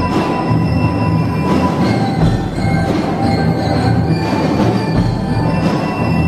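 A drum and bugle corps playing loudly: brass and marching percussion together.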